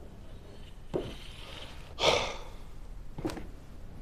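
A quiet stretch with two soft knocks about two seconds apart and, between them, a short breathy sigh that is the loudest sound.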